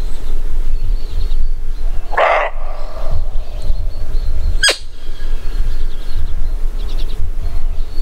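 A roe deer giving one short, harsh alarm bark about two seconds in, over a steady wind rumble on the microphone. A quick, sharp chirp follows a little later.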